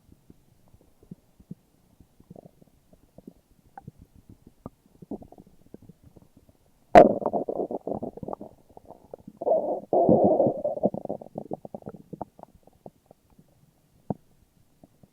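Human stomach growling: faint scattered gurgles, then a sudden loud gurgling rumble about halfway through that comes in two surges and fades back into faint crackles.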